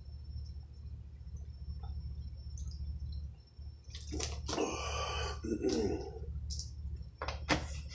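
A person gulping water from a large plastic bottle, then a loud breath out about four seconds in as the bottle comes down. Near the end, the thin plastic bottle crinkles and crackles in the hands.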